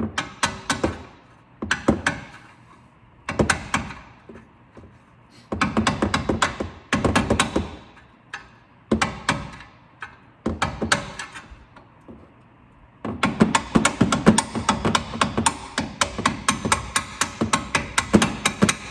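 A hammer striking a steel bolt to drive it through the lower strut mount of a 1989 Mustang GT's front suspension. Sharp metallic taps come in short groups with pauses, then, about two thirds in, a steady run of about three to four blows a second.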